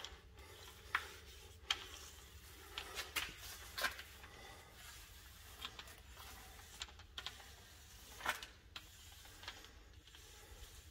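Small paint roller rolling primer onto a plastered door reveal, making faint, irregular soft clicks and rasps.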